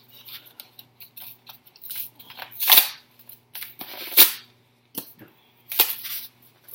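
Packaging being torn and pulled open by hand: a string of rustles and sharp snaps, the loudest about three and four seconds in, over a faint low steady hum.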